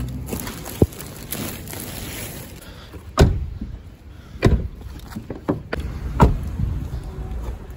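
Handling noise around a car: rustling of a plastic bag and a low rumble, broken by a few sharp knocks, the loudest about three seconds in and two more over the next three seconds.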